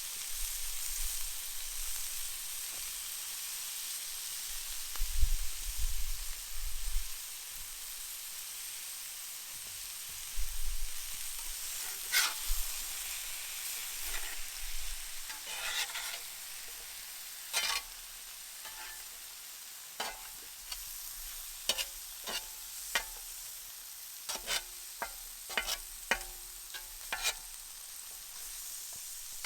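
Chicken and vegetables sizzling steadily in a large Muurikka pan over a campfire. A utensil scrapes and clicks against the pan again and again from about a third of the way in as the spice mix is stirred through, and there are a few low thumps earlier on.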